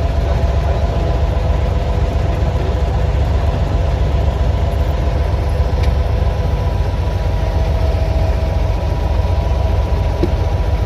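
An engine running steadily close by: a loud, deep, even hum with a few faint steady tones above it, unchanging throughout.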